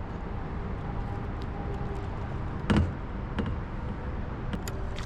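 Steady low outdoor rumble with a faint hum, broken by one dull knock nearly three seconds in and a few light ticks after it.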